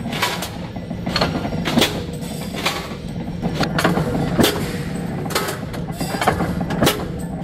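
Mechanical punch press running with a steady motor hum, its ram striking again and again to punch round blanks out of a steel sheet: sharp metallic knocks about once or twice a second.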